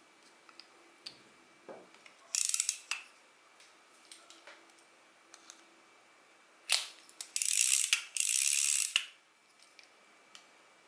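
Daiwa spinning reel being turned by hand, giving short bursts of mechanical gear noise: one about two seconds in and a longer run from about seven to nine seconds, with small clicks in between.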